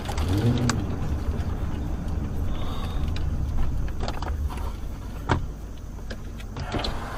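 A car's engine and road noise, a steady low rumble heard from inside the cabin, as the car creeps along slowly. A few sharp clicks stand out, the loudest about five seconds in.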